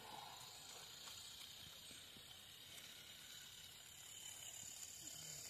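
Faint, steady hiss of steam from a live-steam miniature locomotive, with a few light clicks.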